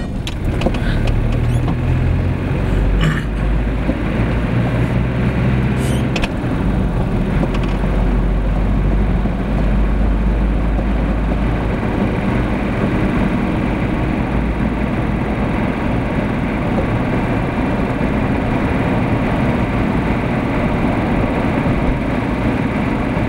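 Car driving on a wet road, heard from inside the cabin: steady engine hum with tyre and road noise. The low engine hum eases off about halfway through, and there are two faint clicks in the first several seconds.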